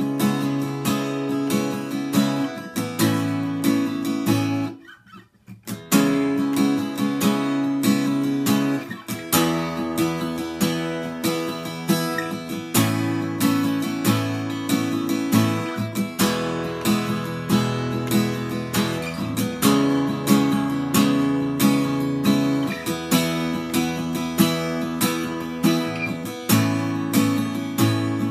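Acoustic guitar in standard tuning, strung with new coated D'Addario EXP19 strings, strumming chords in a steady rhythm, with a brief stop about five seconds in.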